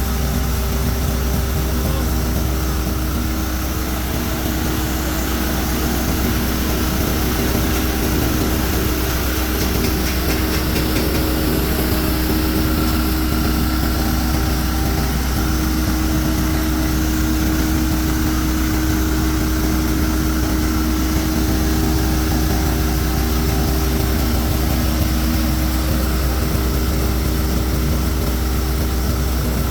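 Rice-husk grinding mill driven by a 10 HP diesel engine, running steadily: a constant loud engine drone with an even rushing noise over it.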